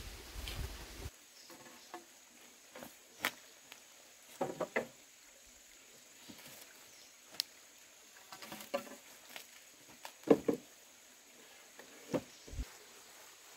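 Hollow bamboo poles and pieces knocking and clattering against each other and the frame as they are handled. The knocks are scattered, some in quick clusters with a short hollow ring, the loudest about ten seconds in.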